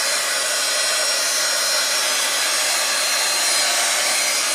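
Handheld hot-air tool running steadily with a faint high whine, blowing wet alcohol ink to push it around and blend it.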